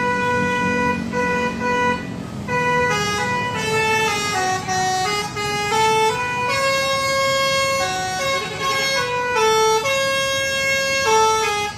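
Basuri telolet bus horn playing a melody: a loud run of held, buzzy horn notes stepping up and down in pitch, with a short break a little after two seconds in.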